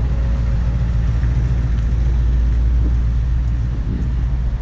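Steady, loud low rumble of wind buffeting the camera's microphone, easing off near the end, over faint street and traffic noise.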